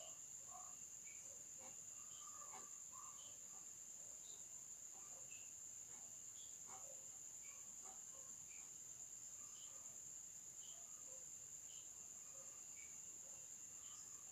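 Near silence with a faint, steady high-pitched insect trill and short chirps scattered about once a second.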